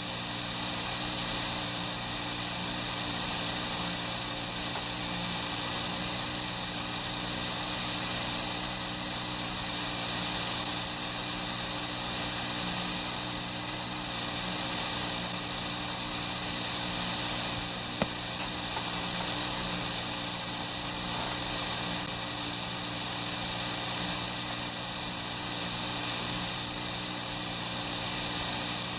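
Steady hiss and low hum of an old police dispatch tape recording during a long silence on the radio channel, with a single click about eighteen seconds in.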